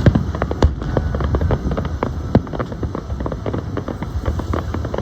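Fireworks crackling: a dense, irregular run of quick pops, with a few louder cracks among them, one about two and a half seconds in.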